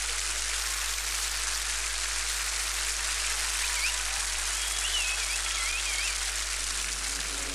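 Sparklers fizzing with a steady hiss. A few faint, wavering whistles come through about halfway.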